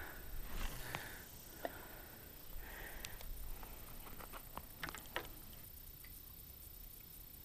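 Fishing rod and reel being handled on the bank: scattered light clicks and ticks, with a few short chirp-like sounds about once a second in the first three seconds and light wind rumble on the microphone at first.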